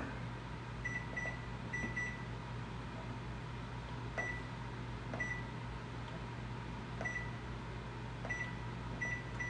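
Over-the-range microwave keypad beeping as its buttons are pressed to set the kitchen timer: about ten short high beeps at uneven intervals, over a low steady hum.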